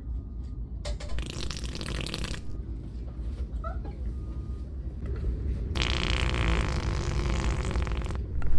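Fake fart noises blown through a novelty fart-noise cup, drawn out and broken into a few long blasts, the last and loudest running about two and a half seconds near the end.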